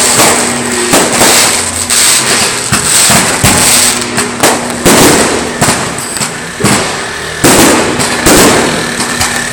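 Firecrackers and fireworks going off nonstop, a loud, dense run of cracks and bangs.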